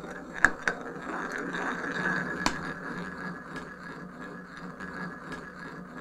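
A heavy ball and a lighter ball rolling round inside a turned wooden bowl, a steady rolling rumble that slowly grows quieter. A few sharp clicks come over it, the loudest about half a second in.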